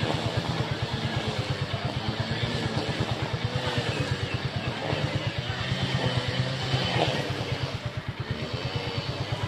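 Small engine idling close by: a steady, rapid putter, with onlookers' voices faintly in the background.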